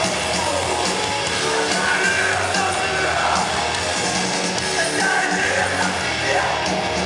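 Live rock band playing loud through the PA, heard from within the crowd: drums and electric guitars under a shouted vocal, continuous and dense.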